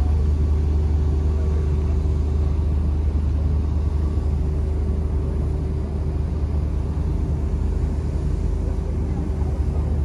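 Steady low rumble and hum of the river cruise ships' engines idling in the lock chamber, with a faint steady tone above it.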